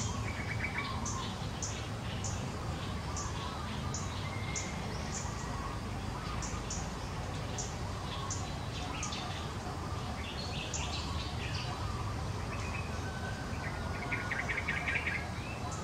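Outdoor ambience of birds chirping: short high chirps about twice a second, with a buzzy trill near the end, over a steady low rumble.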